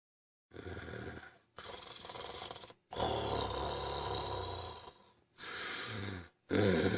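Loud, exaggerated, growling snoring: five long rough snores in a row with short breaks between them, the third the longest and loudest.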